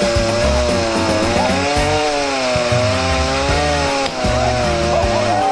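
Chainsaw running under load, its engine pitch rising and falling as it cuts wood, over music with a stepping bass line.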